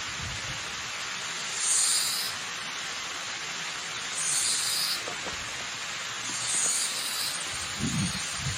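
Waterfall rushing steadily, with a high buzzing call rising above it three times, about two and a half seconds apart. Low rumbling comes in near the end.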